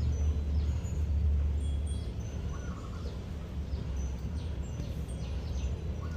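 Outdoor background: a steady low rumble with faint, short bird chirps now and then.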